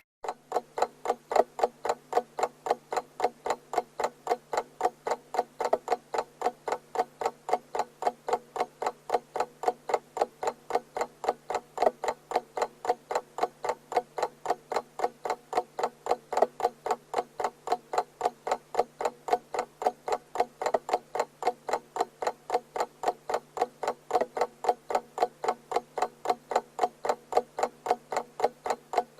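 Alarm clock ticking evenly and fast, about four ticks a second, over a faint steady low hum.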